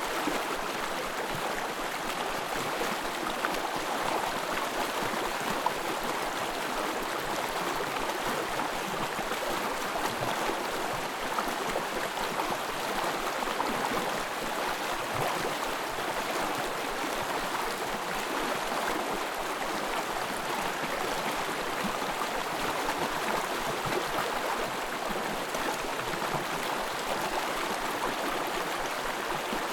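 Forest stream: water running steadily over its bed.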